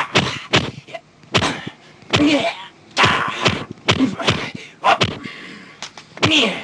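Rapid, sharp snapping strike sound effects from fast kung fu hand techniques, several a second, with short forceful grunts and exhalations whose pitch falls.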